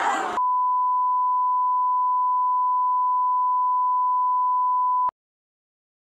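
Colour-bars test tone: one steady, high pure beep that cuts in sharply about half a second in, over the tail of a moment of voices, and stops abruptly about five seconds in.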